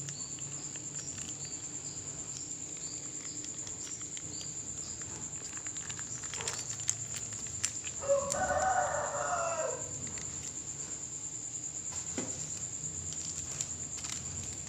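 One animal call of about a second and a half, rising and falling in pitch, starting about eight seconds in. Under it runs a steady, high-pitched insect chirring.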